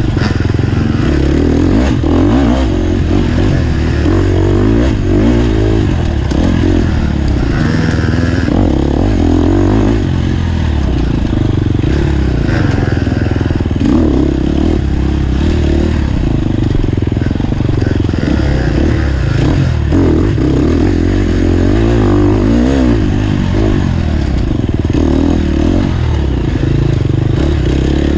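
Off-road dirt bike engine heard on board, revving up and down continuously as the bike is ridden hard along a trail.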